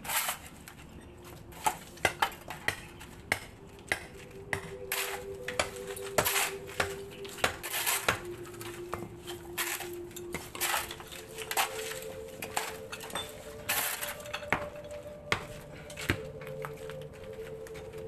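Irregular clinks and knocks of broken concrete and hollow-block chunks from a tomb niche's sealed front being worked loose by hand and dropped onto the rubble pile.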